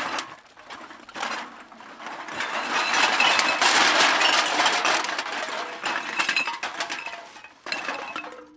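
Bag of metal cans rattling and clinking together: a dense jangle of many cans knocking against each other. It builds to its loudest about halfway, thins out, then gives a last short burst of rattling near the end that stops abruptly.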